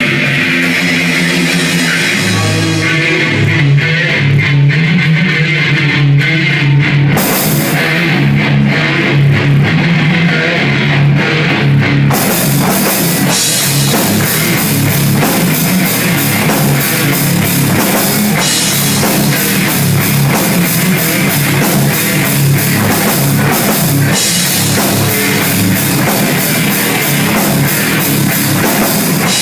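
Heavy metal band playing live: guitars, bass and drums. It opens sparser, the cymbals crash in about seven seconds in, and the full band is going by about twelve seconds.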